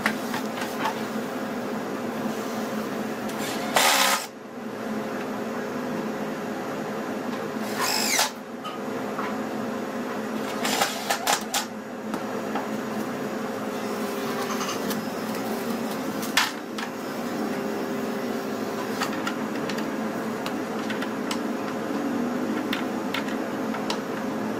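Makita cordless impact driver driving screws into wood in several short bursts, over a steady machine hum.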